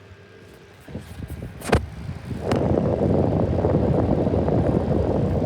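Unbranded 12-inch plastic box fan running on low with its louver: a faint steady motor hum, then knocks and a sharp click as the fan is handled and turned. From about two and a half seconds its air stream hits the microphone as a loud, steady, rough rumble.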